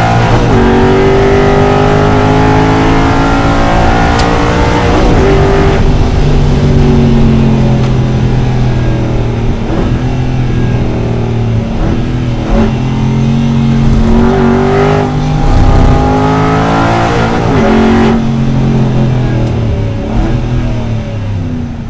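Aston Martin GT4 race car's V8 engine heard from inside the cockpit at racing speed. The revs climb and fall through the gears, and quick gearshifts break the note every few seconds. Near the end it eases to lower, quieter running.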